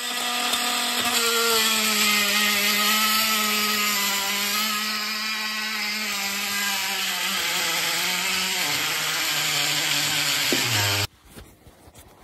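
Makita oscillating multi-tool blade cutting through a laminate-topped chipboard kitchen worktop: a steady buzzing hum with a rasping hiss of cutting over it. The pitch sinks lower over the last couple of seconds, and the tool cuts off about eleven seconds in, once the cut is through.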